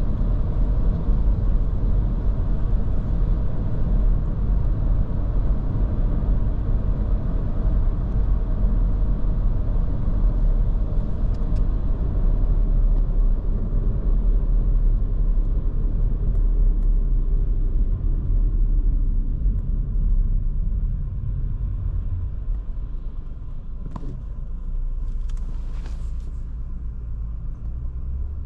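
Low, steady rumble of the engine and tyres heard from inside the cabin of a Škoda Kamiq 1.0 TSI as it drives, with a three-cylinder turbo petrol engine. It gets quieter about two-thirds of the way through, and a few faint clicks come near the end.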